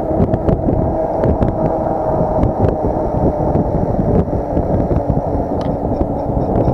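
Wind buffeting the microphone of a rider on a moving e-bike, a loud rough rumble with scattered small clicks. Near the end a faint, evenly spaced ticking comes in.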